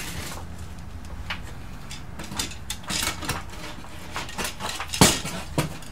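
Scattered light clicks and clinks as a 4-inch remodel can light housing and its metal spring clips are handled and fitted up into a drywall ceiling hole, with one louder knock about five seconds in.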